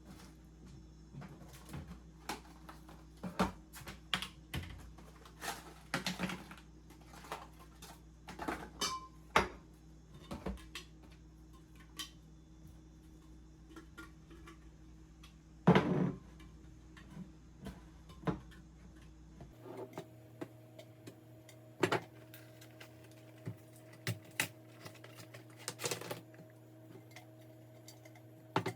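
Irregular clicks, taps and knocks of household items being handled and set down during kitchen cleaning, with one louder knock about two-thirds of the way through, over a low steady hum.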